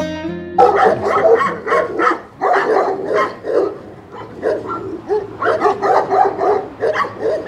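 Caucasian shepherd dogs barking over and over, several barks a second, with a short lull in the middle. Acoustic guitar music stops just before the barking starts, about half a second in.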